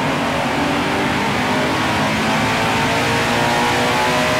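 Toyota GT86's 2-litre naturally aspirated flat-four boxer engine running hard on a chassis dyno, its note climbing slowly and steadily. It breathes through aftermarket extractors and a 3-inch cat-back exhaust, which give it an aggressive exhaust note.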